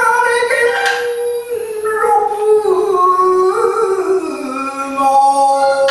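Male rōkyoku (naniwabushi) singer holding a long, drawn-out sung phrase that steps down in pitch over several seconds. A shamisen string is struck once about a second in.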